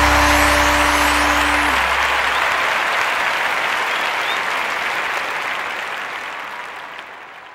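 A large audience of students applauding, the clapping fading away steadily toward the end. A held low note of the song dies out in the first two seconds.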